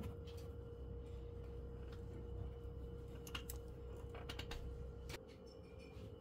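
Oil-paint brush dabbing and tapping on the canvas: faint, scattered light clicks and taps, a few seconds apart, over a steady low hum that drops away about five seconds in.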